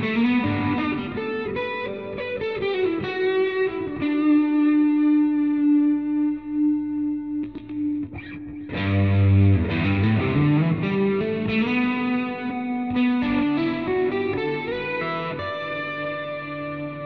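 PRS SE Custom 22 semi-hollow electric guitar recorded direct through a Positive Grid Spark amp, with its Graphtec Ghost piezo bridge pickup blended with the Seymour Duncan magnetic pickups. It plays a melodic line of notes and runs, with one note held for about three seconds near the middle and a rising run after it.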